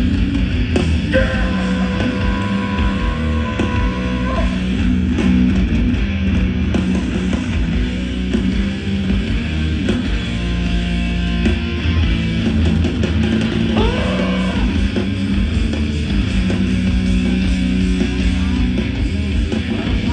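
Live hardcore band playing loud, with distorted electric guitars over bass and drums. A held high guitar note rings out from about a second in to about four seconds.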